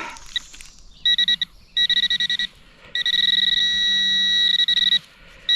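Metal detector's high electronic tone sounding over a target still buried in the dig hole: a few short beeps, then a quick run of beeps, then a steady tone of about two seconds, and more beeps near the end.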